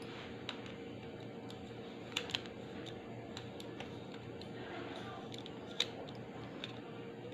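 Small sharp clicks and taps of a precision screwdriver on the plastic shell of an audio cassette as its screws are worked loose, a few scattered clicks with a close pair a little over two seconds in and the loudest near the end, over a faint steady hum.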